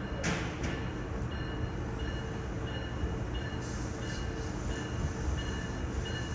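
An approaching train heard from a station platform: a steady low rumble, with faint short high-pitched chimes repeating about every two-thirds of a second. A brief hiss comes just after the start.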